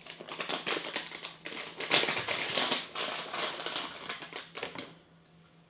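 Plastic packaging bag crinkling and rustling in the hands as a small dash camera is worked out of it, a dense run of crackles that stops about five seconds in.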